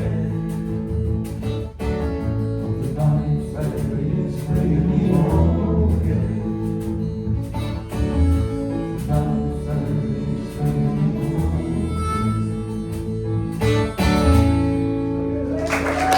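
Live acoustic guitar music playing the instrumental close of a folk song. Applause breaks out just before the end.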